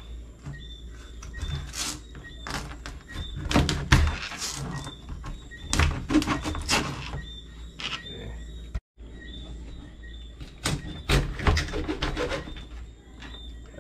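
Chef's knife cutting through lionfish on a plastic cutting board: irregular knocks and thunks as the blade strikes the board, with a low steady hum underneath.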